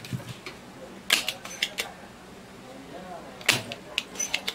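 Spring-loaded desoldering pump (solder sucker) clicking and snapping as it is cocked and fired to pull solder from a circuit board joint. The sharp clicks come in two quick clusters, about a second in and again about three and a half seconds in.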